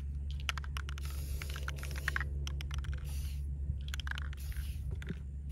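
Aerosol spray paint can hissing in several short bursts, with many sharp clicks in between.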